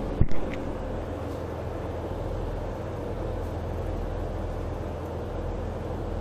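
Steady low drone of a ship's machinery, a constant rumble with a faint hum over it. A sharp knock sounds right at the start.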